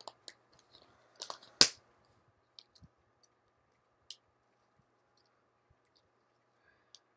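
Sharp plastic clicks and snaps as small toy accessories are worked loose from their packaging card, the loudest about a second and a half in, followed by a few fainter ticks and then quiet.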